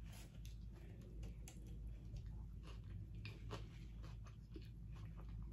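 A person chewing a mouthful of burrito close to the microphone: faint, irregular mouth clicks and smacks.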